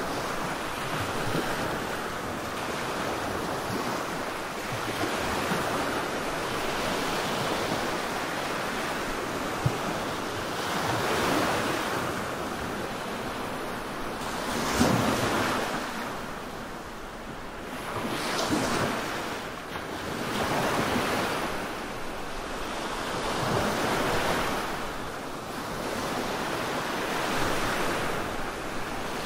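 Relaxation 'black noise' track: a continuous rushing hiss, like surf, that swells and ebbs every three to four seconds. A single brief click comes about a third of the way in.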